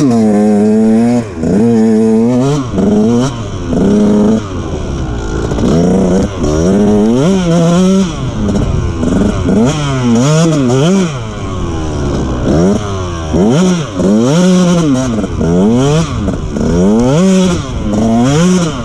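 KTM two-stroke motocross bike's engine revving up and dropping back over and over, roughly once a second, as it is ridden hard on the throttle through deep, soft sand.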